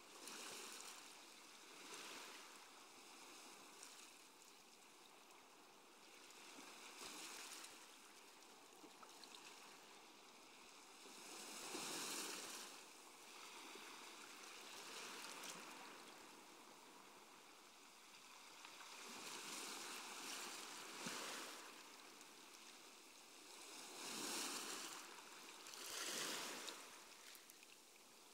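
Faint sea waves washing in and drawing back, a soft rushing that swells and fades every few seconds.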